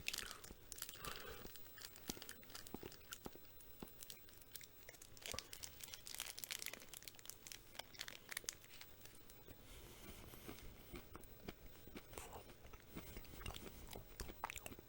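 Faint close-up chewing and crunching of a chocolate and peanut-butter candy bar with crunchy peanuts: scattered small crunches and mouth clicks, a little busier about halfway through.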